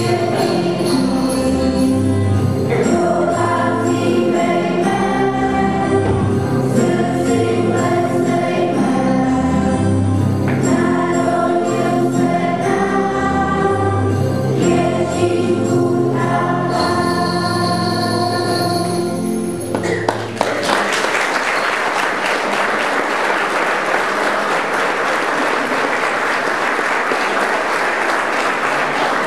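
A school choir of children and teenagers sings a song with instrumental accompaniment, finishing on a held chord about two-thirds of the way through. The audience then breaks into steady applause.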